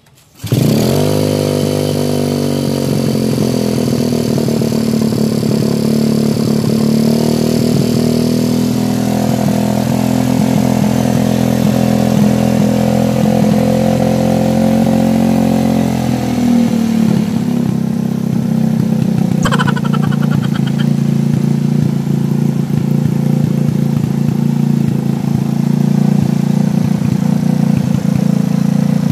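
SYM motorcycle's single-cylinder four-stroke engine catching on the kick-start and running at idle through a newly fitted aftermarket muffler. A little past halfway its note changes and settles lower, and a short click sounds soon after.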